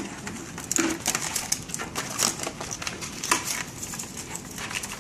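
Plastic packaging and tubing of a disposable CRRT cartridge set crinkling and crackling as it is handled and lifted out of its tray, in many irregular crackles.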